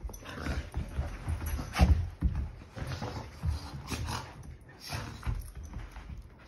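Two dogs play-wrestling: irregular scuffling and thumping of paws and bodies on carpet, mixed with short dog noises.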